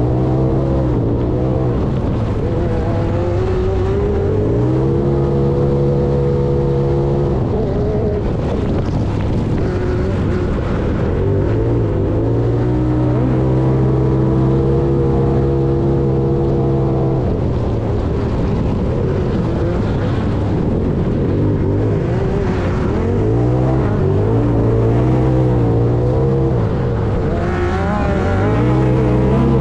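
Side-by-side UTV engine running hard on a rough dirt track, heard on board. The revs climb several times, hold steady at a high pitch for a few seconds each time, then drop away. Rumble and wind noise from the ground and speed run underneath.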